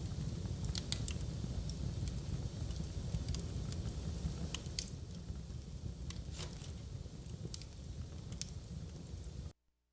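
Wood fire burning in a fireplace: a steady low rumble of flames with irregular sharp pops and snaps from the logs. It cuts off suddenly near the end.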